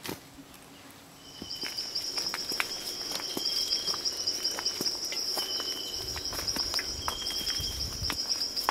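Insects trilling steadily at a high pitch from about a second in, with a lower insect call repeating in short phrases about a second long. Footsteps on the trail add irregular clicks.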